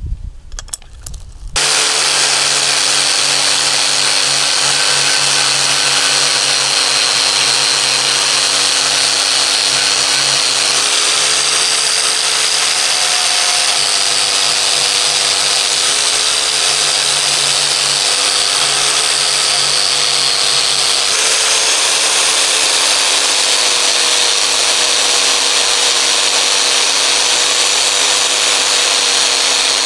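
A few light clicks as a pin spanner tightens the nut on an angle grinder's non-woven abrasive disc, then the electric angle grinder starts about a second and a half in and runs steadily with a high hiss as the disc buffs rust off steel pliers. Its pitch shifts slightly now and then as the disc is pressed against the metal.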